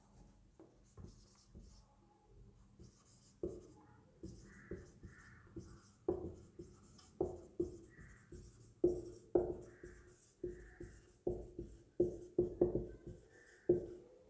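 Marker pen writing on a whiteboard: a run of short strokes and taps with a few brief squeaks as letters are formed, growing louder about six seconds in.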